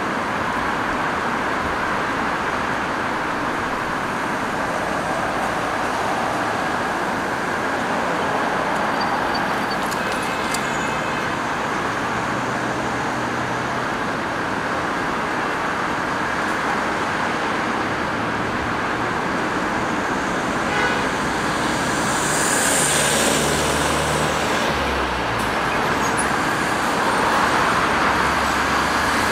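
Steady city road traffic, cars passing on a multi-lane road, with a heavier vehicle's low engine rumble building in the last third.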